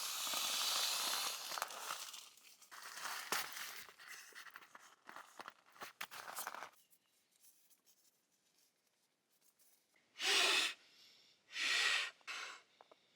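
Nylon crinkling and rustling of a Sea to Summit inflatable sleeping mat being handled and filled. After a quiet pause, two short, loud puffs of air are blown into it.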